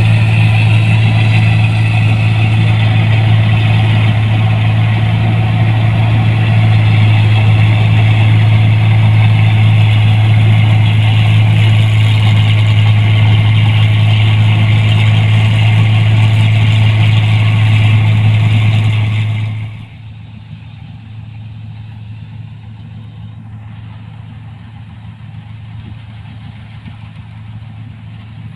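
New Holland 1545 combine harvester's engine running steadily as the machine harvests rice, a loud, even hum. About two-thirds of the way through the sound drops suddenly to a quieter, duller level, as heard from farther off.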